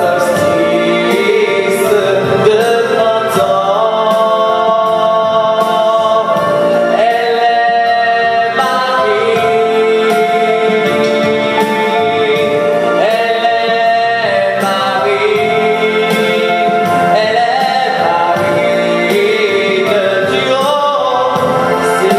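A male singer singing a French musical-theatre song with musical accompaniment, holding several long notes.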